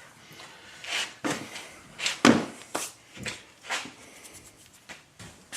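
Plastic air filter housing and its filter element being handled: a series of short knocks and scrapes, the loudest about two seconds in.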